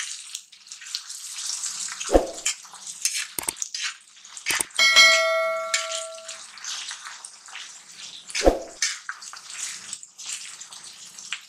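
Chopped onions and green chillies sizzling in oil on an iron tawa while a steel spatula scrapes and stirs them, being sautéed until soft. About five seconds in, the spatula clangs against the pan and it rings for over a second, and there are dull knocks of the spatula at about two and eight and a half seconds.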